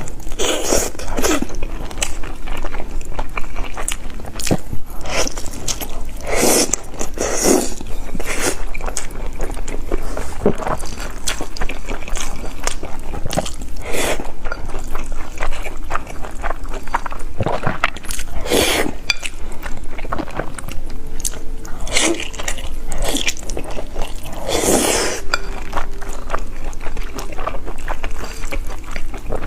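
Close-miked eating: biting and chewing sweet-and-sour fried eggs, many small wet clicks with a few louder bites spread through.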